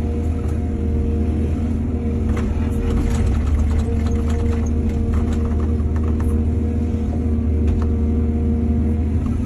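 Excavator's diesel engine running steadily, with a run of clattering knocks from about two to six seconds in.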